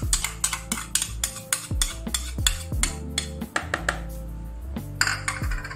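Clicks and scrapes as thick strained yogurt is scraped from a paper bowl into a plastic container, over background music with a steady bass line and drum hits.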